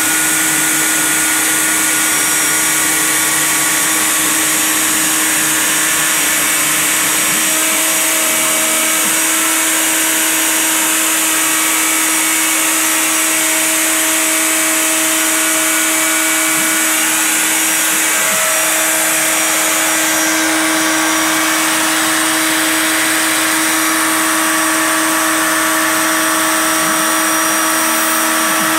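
CNC router spindle running steadily, a single-flute 1/8-inch end mill milling 1/4-inch black ABS sheet at a low-ish spindle speed and a 40 inches-per-minute feed. A steady whine with a hiss over it, with a few brief low glides in pitch.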